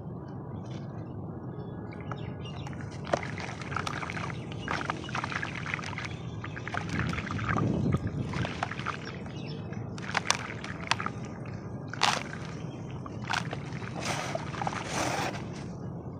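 Sand-and-cement shapes crumbling and dissolving in water, giving wet sloshing with scattered crackles and sharp cracks, the sharpest about three and twelve seconds in.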